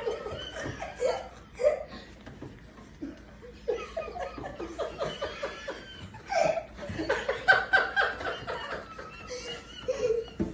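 A person laughing hard and wheezing, in rapid breathless bursts of laughter that come fastest in the second half.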